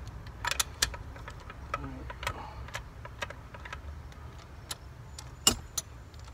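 Ratchet and socket working the cylinder-head bolts loose on a GM 2.0 L LNF engine: irregular metallic clicks and ticks, a few a second, the loudest about five and a half seconds in, over a steady low hum.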